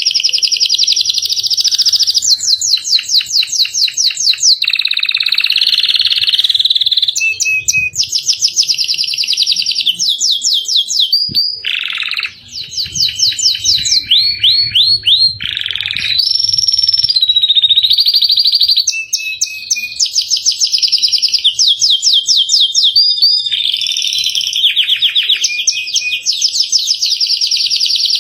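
Domestic canary singing nonstop in fast rolling trills and rapid runs of repeated high notes, switching phrase every second or two, with a brief pause about twelve seconds in.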